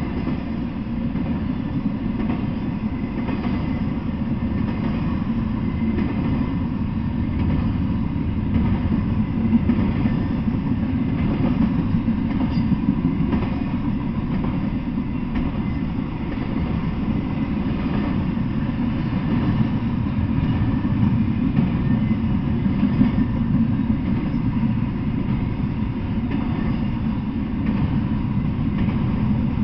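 Intermodal freight train cars rolling past: a steady low rumble of steel wheels on the rails that holds at an even level throughout.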